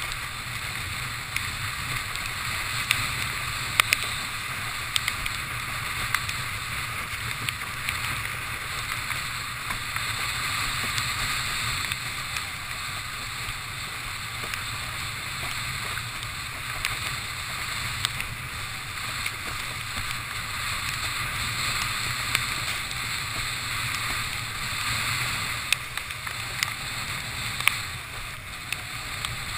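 Windsurf board planing fast over choppy water: a steady rush of water and spray with low wind buffeting on the boom-mounted camera, broken by frequent short, sharp slaps as the board hits the chop.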